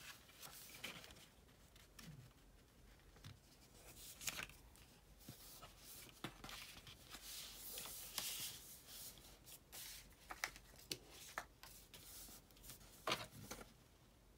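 Faint rustling and sliding of sheets of scrapbook paper being handled and folded on a tabletop, with a few short light taps and clicks scattered through.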